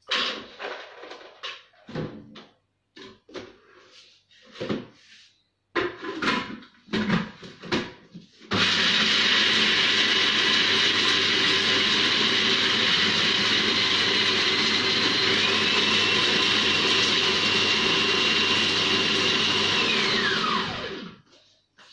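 Knocks and clatter as the electric blender is loaded and closed, then about eight seconds in its motor starts and runs steadily, chopping walnuts. Its whine steps up in pitch partway through and slides down as the blender is switched off and spins down near the end.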